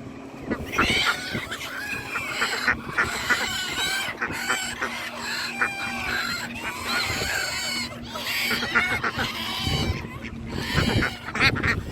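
Many market poultry calling over one another, geese honking loudest among chickens and ducks, in a steady overlapping din.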